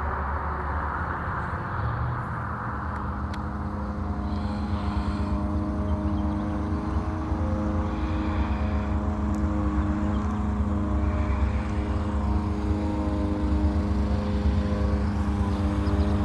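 Distant diesel freight locomotives running with a steady, even drone that grows slightly louder. A rushing noise fades out over the first few seconds.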